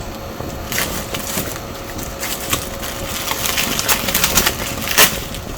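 Cardboard shipping box and packing material crackling and scraping while a portable computer is worked out of it, with a run of irregular crackles and a sharp crack about five seconds in.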